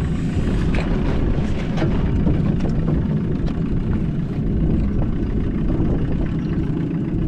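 Small fishing boat's motor running steadily at trolling speed: a constant low rumble.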